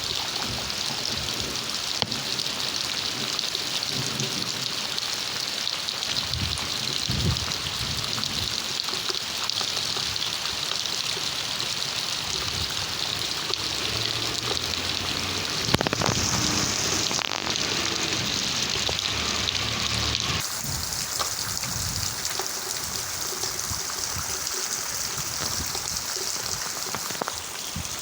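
Rain falling steadily, an even hiss of drops on surfaces. About three-quarters of the way in, the sound changes abruptly and turns thinner and higher.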